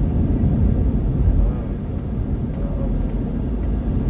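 Steady low rumble of a car driving on a paved road: engine and tyre noise heard from inside the cabin.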